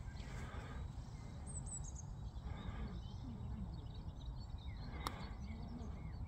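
Wind rumbling on the microphone, with faint bird chirps and a single light click about five seconds in.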